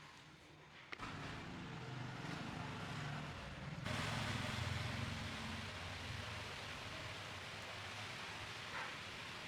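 A switch clicks on, then a hair dryer's fan motor runs with a low hum and a rush of air; about four seconds in the airflow grows louder and stays steady.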